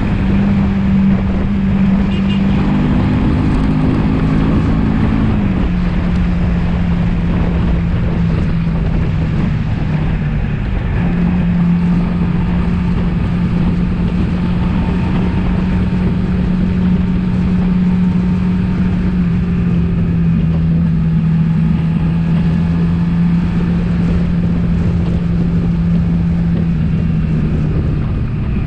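Suzuki V-Strom motorcycle engine pulling steadily uphill, with wind rush. Its note dips about five seconds in, rises again around eleven seconds, and eases slightly near twenty seconds.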